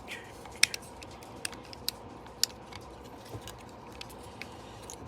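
Plastic parts and joints of a Transformers action figure clicking and knocking as it is handled and transformed: a string of short, irregular clicks, two of them sharper and louder, about half a second and two and a half seconds in.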